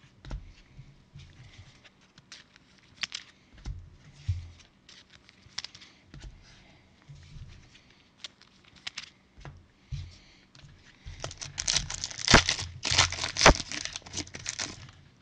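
A few faint scattered clicks, then about eleven seconds in a foil trading-card pack is torn open, its wrapper crinkling loudly.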